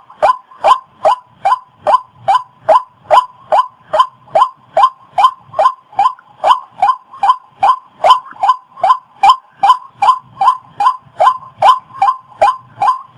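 Waterhen calling: a loud, monotonous run of short, even notes, about two and a half a second, each dropping slightly in pitch.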